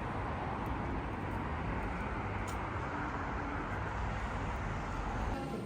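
Steady vehicle rumble and road noise, heaviest in the low end, that cuts off shortly before the end.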